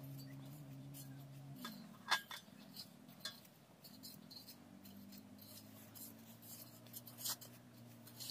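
Knife cutting a zucchini by hand over a metal bowl, with a few sharp clinks as the blade or pieces strike the bowl, the loudest about two seconds in. A faint low steady hum runs underneath, dropping away for a few seconds after the first second and a half.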